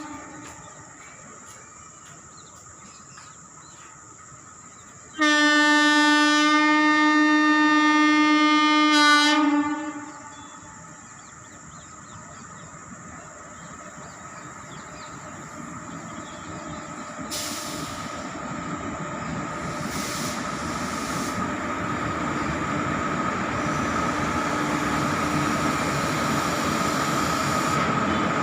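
WAP-4 electric locomotive horn sounded once, a single steady blast of about four seconds. It is followed by the rumble of the train's wheels on the rails, growing steadily louder as the train draws near.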